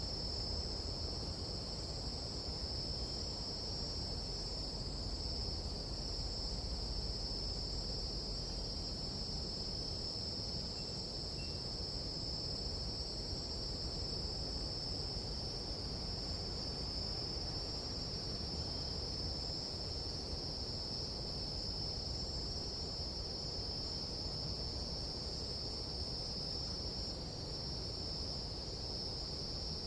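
Nighttime jungle insects chorusing in one steady, unbroken high-pitched drone, with a low rumble underneath.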